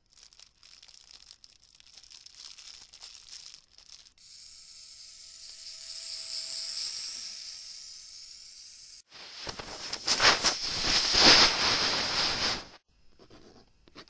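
Hissing, crackling noise that gives way to a smoother hiss swelling and fading in the middle, then a loud rushing noise for about three seconds near the end.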